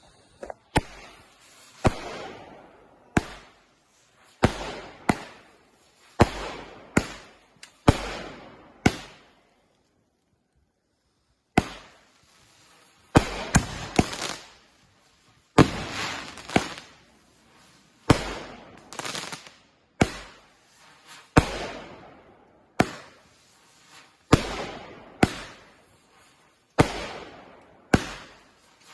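Consumer aerial fireworks going off in rapid succession: sharp reports about once a second, each followed by a fading tail, with a short pause about ten seconds in.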